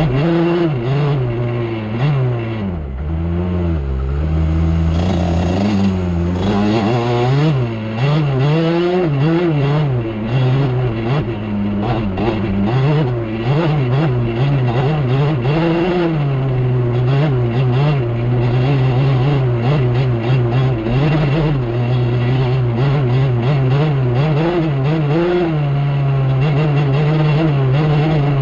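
Off-road vehicle engine running under a rider's throttle, its pitch rising and falling as it is worked. A few seconds in, it drops to a lower pitch for a couple of seconds, then picks up again.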